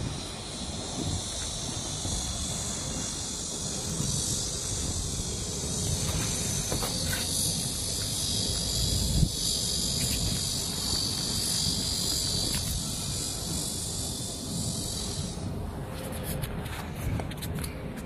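A steady, high-pitched insect drone that cuts off suddenly near the end, over a low rumble.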